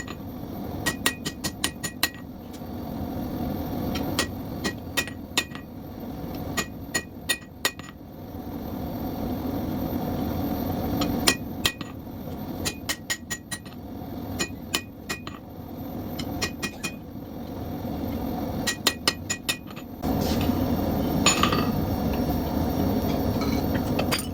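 Hand hammer striking hot steel on an anvil in quick runs of several blows with short pauses between. Each blow rings the anvil, drawing out and tapering a forged bar. A steady rushing noise runs underneath, and near the end the hammering stops and this noise grows louder.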